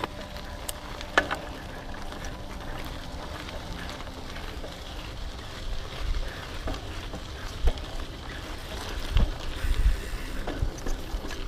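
Hardtail mountain bike rolling over a dirt trail: tyre noise and rattling from the bike over rough ground, with a sharp click about a second in. Wind buffets the microphone, with low thumps in the second half.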